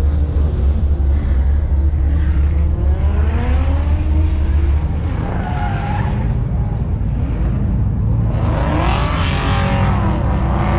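Performance cars running on the track, their engines revving up and down, with tyre squeal, over a strong low rumble that drops away about five seconds in. The revving is busiest near the end.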